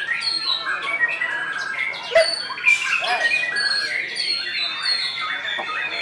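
Caged white-rumped shama singing a varied whistled and chirping song, among the overlapping songs and calls of other caged birds. A single sharp click sounds about two seconds in.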